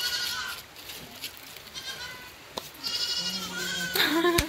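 Two high, wavering bleat-like calls, each about a second long, one at the start and one about three seconds in, with a couple of short clicks between and after them.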